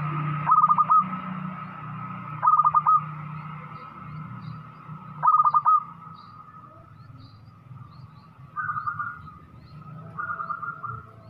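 Zebra dove cooing: three loud phrases of quick rolling notes about two and a half seconds apart, then two fainter phrases near the end. A steady low hum sits beneath and fades away.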